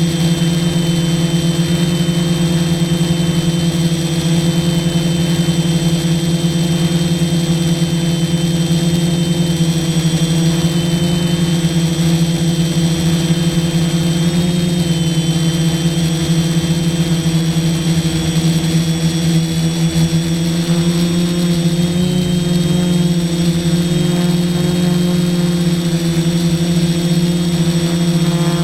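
F450 quadcopter's four brushless motors and propellers humming steadily in flight, with a thin high whine that wavers slightly. The pitch nudges up about two-thirds of the way through.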